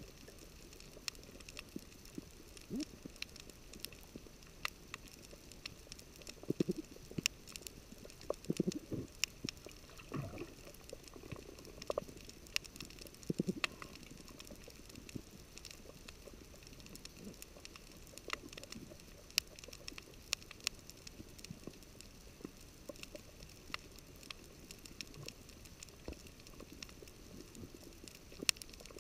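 Underwater coral-reef ambience heard through a camera housing: a steady crackle of scattered sharp clicks, typical of snapping shrimp, over a faint hiss. A few low gurgling, bubbling sounds come through in the middle.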